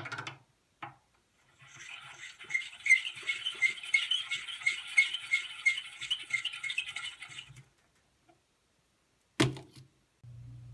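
Sinclair case trimmer cutting the mouth of a brass rifle case as its handle is spun: an even metal-on-brass scraping chatter with about three peaks a second, lasting about six seconds. It is preceded by a couple of small clicks and followed near the end by a sharp knock as the case is handled in the collet.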